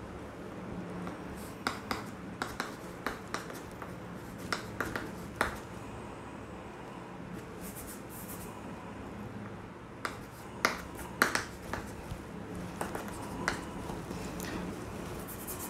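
Chalk tapping and scratching on a blackboard as equations are written: short, sharp clicks in little clusters, over a steady low hum.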